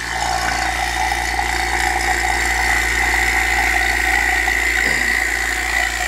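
HVAC vacuum pump starting up and running steadily, a low motor hum with a steady high whine, as it pulls a vacuum on a recovery tank through the hoses for a leak-tightness test.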